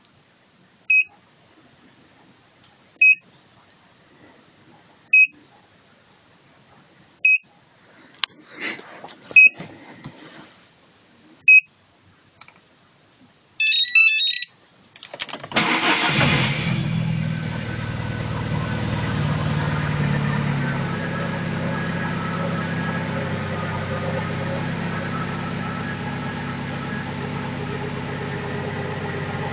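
Car immobiliser beeping about every two seconds, then a short electronic melody: the immobiliser's warning that the key fob battery is dead. About fifteen seconds in, the Alfa Romeo 156's 1.8 Twin Spark four-cylinder engine starts for the first time after a rebuild and settles into a steady idle.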